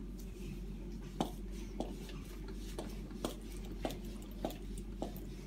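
Light, sharp knocks, about seven in a row at a fairly even pace from about a second in, as the tight-fitting stroller handle is worked off its frame.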